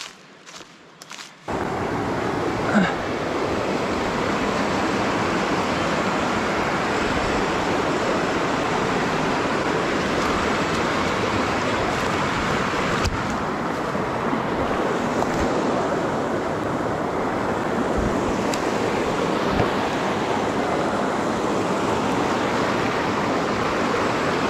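Steady rushing of river water flowing over rocks, starting abruptly about a second and a half in after a few faint footsteps.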